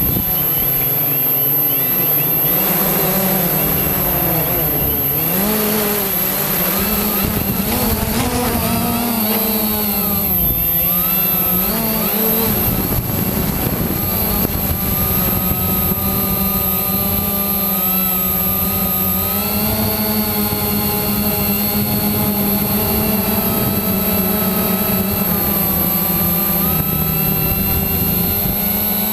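Quanum Nova quadcopter's electric motors and propellers buzzing in flight. The pitch wavers up and down with throttle changes for the first dozen seconds, then holds steadier.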